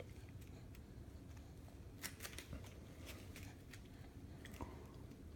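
Faint, irregular clicks and light taps from a baby handling a power cable.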